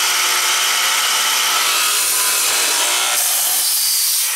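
Hinge boring machine with a 56C frame motor running, its multi-spindle boring head drilling the hinge cup and screw holes into plywood: a loud, steady whir with cutting noise, easing slightly near the end.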